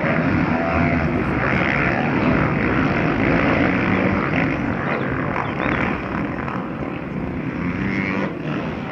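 A pack of motocross bikes racing, many engines running and revving together in a continuous drone, easing off slightly near the end.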